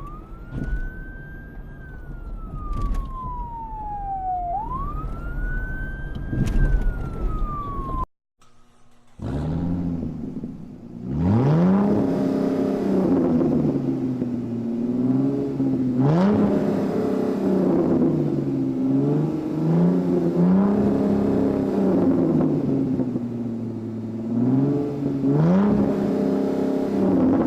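A siren wailing in slow rising and falling sweeps, which cuts off about eight seconds in. After a short silence, a car engine revs up and down over and over.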